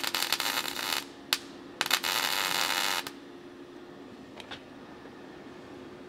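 Kemppi MIG welder arc running in two short stitch welds on thin sheet steel: the first stops about a second in, the second runs from about two seconds to three. A few faint ticks follow as the weld cools.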